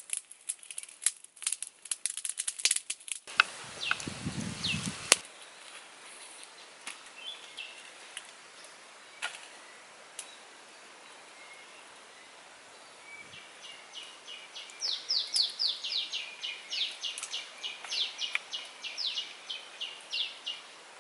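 Sharp crackling clicks for the first three seconds, then a brief low rumble. In the last seven seconds a bird calls behind it: a rapid run of short, high descending notes, about four a second.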